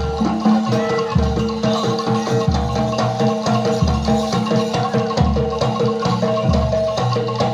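Gamelan music accompanying a jaranan dance: struck metallophones play a repeating melody over a deep beat that lands about every 1.2 seconds.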